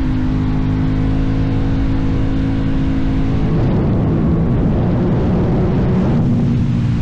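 Aprilia Tuono 660 parallel-twin engine running through a cheap aftermarket Teen Top exhaust, holding steady revs for about three seconds, going rougher and noisier in the middle, then settling back to steady, slightly lower revs near the end.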